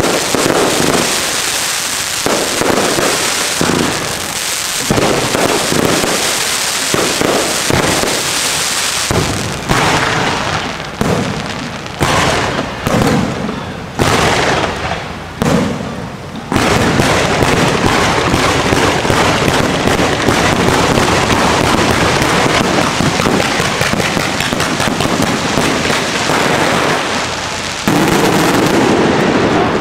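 Fireworks display: aerial shells bursting and crackling overhead, then a run of separate sharp bangs, each dying away. From about halfway it becomes a continuous dense barrage of crackling and bangs, loudest near the end.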